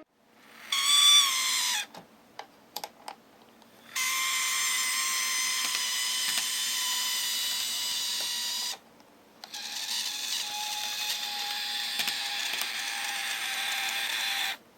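Motor car of a KATO N gauge model train running with a high-pitched whine: a short burst that drops in pitch as it stops, then two longer steady stretches of about five seconds each, with a few clicks between. The whine is the abnormal running noise from the motor car that is the fault to be repaired.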